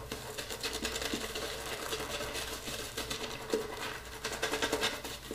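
Shaving brush being worked over a soaped face to build lather: a quiet, rapid wet swishing of the bristles in the shaving soap.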